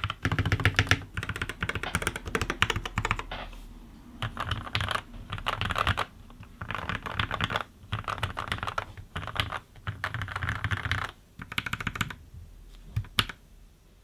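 Typing on a Skyloong GK87 tenkeyless mechanical keyboard with lubed Gateron Milky Yellow linear switches, steel plate and PBT keycaps: bursts of rapid keystrokes with short pauses, thinning to a few single strokes near the end.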